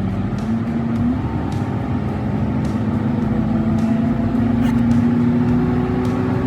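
Truck driving at highway speed: a steady engine and road drone whose pitch rises slowly, with faint ticks about once a second.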